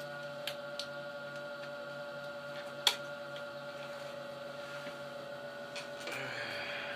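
Steady hum and buzz from a guitar amplifier with an electric guitar plugged in, idling at volume, with a few small clicks from handling, one sharp click about three seconds in, and a short scratchy rustle near the end.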